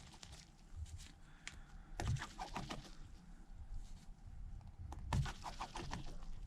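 Faint, scattered clicks and ticks of a precision screwdriver and tweezers working tiny screws out of a phone's internal bracket, with a few louder clusters of taps about two and five seconds in.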